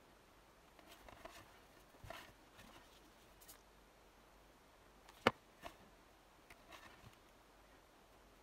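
Quiet handling of small die-cut card pieces and a plastic squeeze glue bottle: faint scattered clicks and rustles, with one sharp tap about five seconds in.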